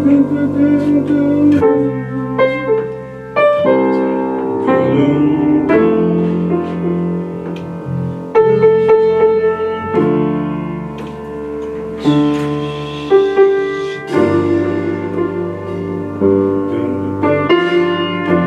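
Piano playing a slow intro of held chords that change every second or two, with low bass notes under them.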